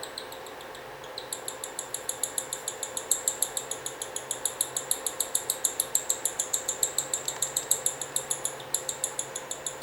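Nestling bird's food-begging calls while being fed by its parent: a rapid string of short, high, squeaky chirps, about six a second, starting about a second in with a brief break near the end.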